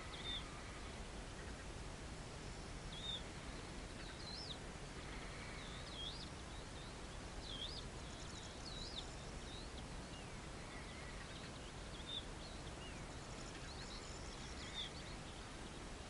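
Small songbirds chirping and singing, with short high calls and quick warbled phrases scattered throughout, over a steady low background rumble.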